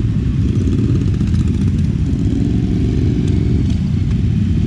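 Several motorcycles riding off at low speed, their engines rumbling together, with one engine's note rising and falling about halfway through.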